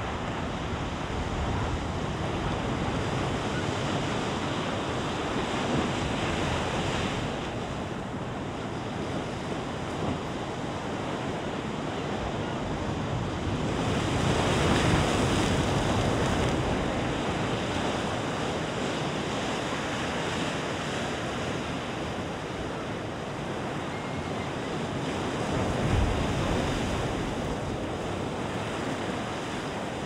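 Sea waves breaking and washing over large shoreline boulders: a continuous rush of surf that swells to its loudest about halfway through and ebbs again, with a brief thump of a wave hitting the rocks near the end.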